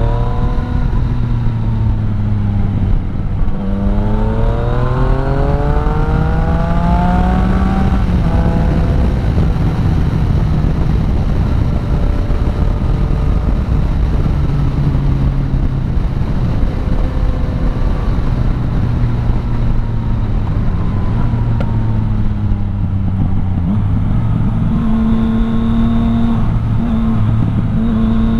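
Yamaha MT-09 Tracer 900's three-cylinder engine through an Akrapovič exhaust, revs climbing from about four seconds in to eight seconds in, dropping at a gear change, then holding steady at cruise and rising again near the end.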